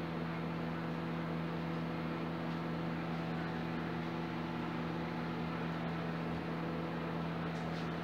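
Electrolux MEC 41 microwave oven running on a heating cycle: a steady low hum with fan noise and no change. This is the sign that its high-voltage transformer is powered, now that the failed relay on the control board has been replaced.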